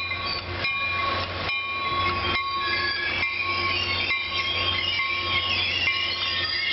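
Caltrain commuter train rolling past with a steady low rumble. Wheels click over rail joints roughly once a second, and a wavering high wheel squeal builds in the second half.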